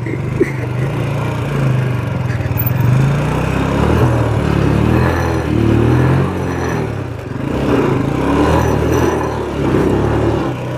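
Motorcycle engine revving up and down, its pitch rising and falling again and again as the bike is ridden through mud off-road.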